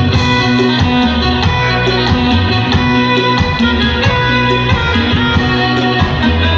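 A live band playing amplified music through a loud stage sound system, with a bass line, held keyboard and guitar notes and a steady quick beat, heard from within the crowd.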